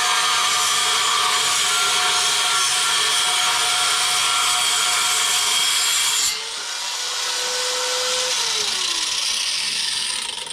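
A power tool running and cutting, loud and steady; its sound changes and eases about six seconds in, then stops right at the end.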